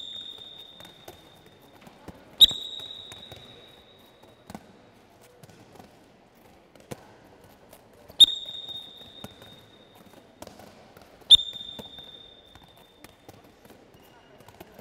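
Handballs smacking during a passing drill: four loud, sharp hits a few seconds apart, each leaving a brief high ring, with fainter knocks between them.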